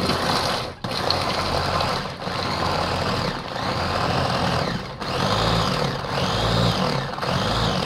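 Masterchef electric vegetable chopper's motor running, its blades chopping a full bowl of onion, tomato and capsicum. The whirring starts abruptly and is loud, with brief dips every second or two.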